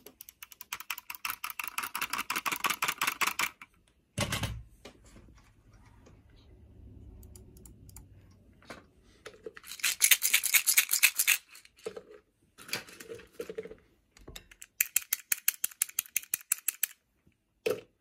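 Fast typing on a Minivan 40% mechanical keyboard, in several bursts of rapid keystrokes separated by short pauses. There is a single dull thump about four seconds in.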